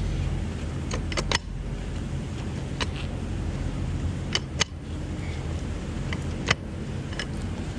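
Semi-truck engine running at a low, steady rumble, heard from inside the cab, with scattered sharp clicks and knocks as the truck is manoeuvred into place.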